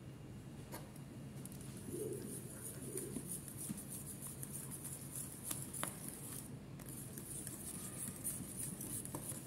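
Wire whisk beating a knob of butter into thickened lemon cream in a stainless steel saucepan: a soft, steady scraping swish with a few light clicks of the wires on the pan. It starts about a second and a half in and breaks off briefly past the middle.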